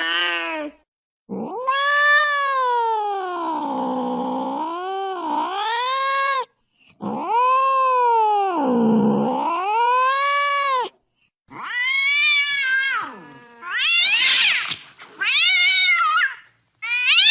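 An angry cat yowling: two long drawn-out calls whose pitch sags and climbs again, then four shorter, higher calls in quick succession near the end.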